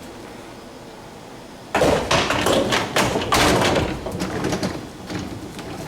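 A run of clunks and thumps from the GE dishwasher being handled after reassembly, its racks and door knocking, starting about two seconds in and easing into lighter clicks.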